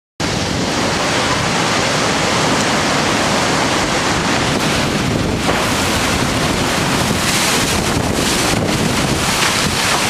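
Strong wind and heavy rain of a severe storm: a loud, dense, unbroken rush of wind-driven rain.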